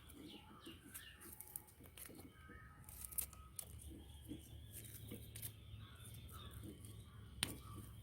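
Faint clicks and rustles of hands handling wiring, with a sharper click near the end, while small birds chirp briefly in the background.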